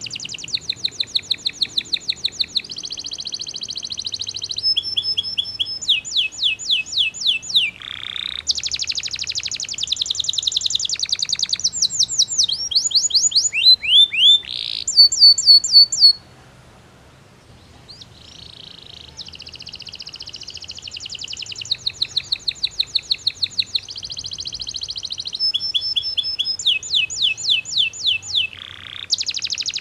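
Belgian canary singing: a long song made of rapid trills, each phrase a quick run of identical chirps that switches to a new note type every second or two. The song breaks off for about two seconds just past the middle, then resumes.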